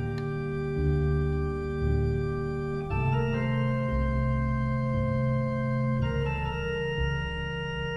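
Slow background music of held, sustained chords on a keyboard instrument, moving to a new chord about every three seconds.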